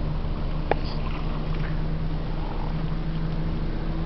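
Steady low drone of the Great Lakes freighter's engines carried across the water, with a level hum over a low rumble. A brief click comes just under a second in.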